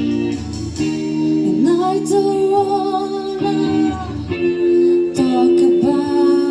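A song on guitar with a singing voice: strummed chords under long held sung notes that slide up into pitch, about a second and a half in and again near five seconds.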